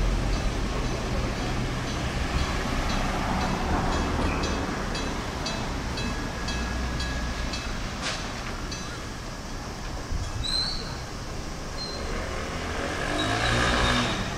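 Street traffic on a road shared with Enoden tram track: an Enoden electric train moving off into the distance while cars drive past. A light regular ticking, about two a second, sounds through the middle, and a vehicle gets louder as it passes close near the end.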